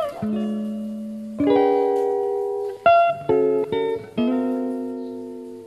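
Background music: guitar chords plucked slowly, about five in all, each left to ring and fade before the next.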